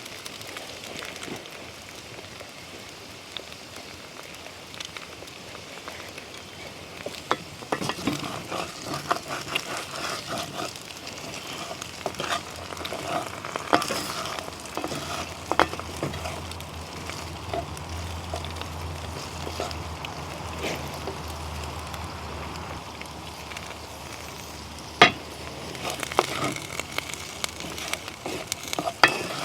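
Food frying and sizzling in a cast iron pan over an open fire. From about a quarter of the way in, a cooking utensil clicks and scrapes against the pan as the food is stirred, with one sharp knock near the end.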